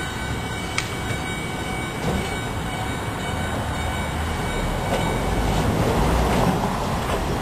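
Manyo Line tram approaching slowly, its wheels rumbling low on the rails and growing a little louder in the last few seconds, with a sharp click about a second in.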